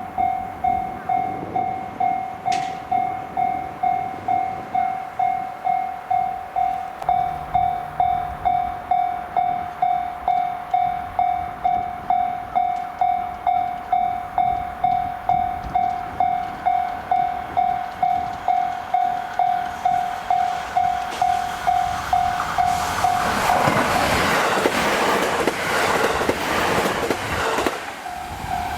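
Japanese level-crossing warning bell ringing in a steady electronic pulse, about one and a half strikes a second. Near the end a train passes at speed for about five seconds, and its loud rushing rumble drowns out the bell.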